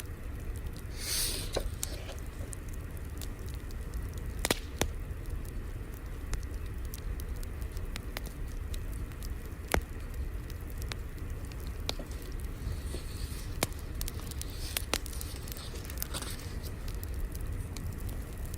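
Wood fire crackling, with irregular sharp pops over a steady low rumble and hiss; the loudest pops come about four and a half seconds and ten seconds in.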